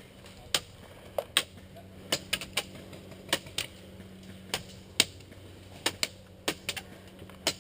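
Airsoft rifle shots fired one at a time: sharp clicks at irregular intervals, about fifteen in all, some in quick pairs.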